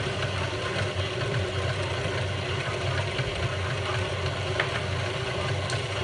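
Tilt-head stand mixer running steadily at a constant speed, its flat beater mixing cake batter in a stainless steel bowl.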